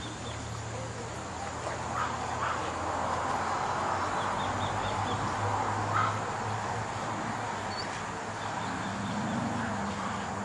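Australian Shepherd puppies play-wrestling, with short sharp yips about two and six seconds in over a steady background hiss. Faint bird chirps sit high above.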